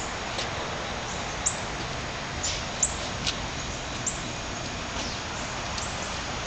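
Small birds chirping: short, high chirps about once a second, over a steady outdoor hiss.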